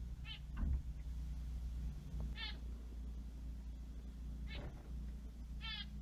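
A finch's short nasal calls, four of them about two seconds apart, over a steady low hum.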